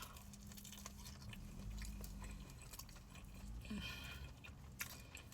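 Faint chewing of a deep-fried crab cake, with small scattered mouth clicks over a low steady hum that stops about halfway through.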